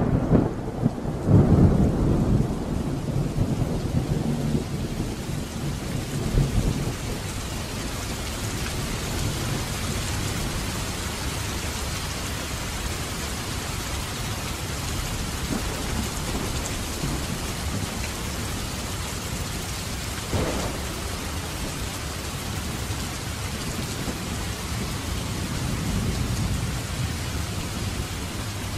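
Steady heavy rain with rolling thunder. The thunder rumbles loudest in the first few seconds and dies away, leaving an even hiss of rain, with another low rumble near the end.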